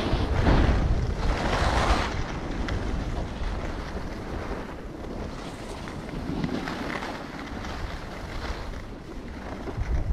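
Wind rushing over a moving skier's camera microphone, with the hiss and scrape of skis on groomed snow swelling and easing through the turns. It is loudest in the first two seconds.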